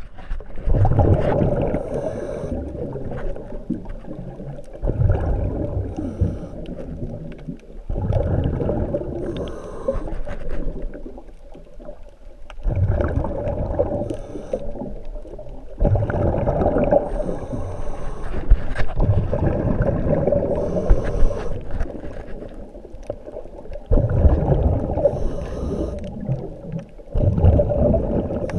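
Scuba diver breathing through a regulator underwater: a loud bubbling rumble of exhaled air every few seconds, with quieter gaps and brief hisses between breaths.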